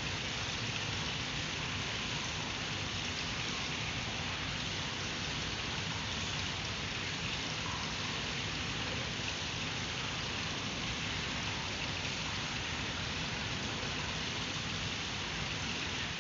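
Steady hiss of even background noise with a low rumble beneath it, unchanging throughout, with no distinct sounds standing out.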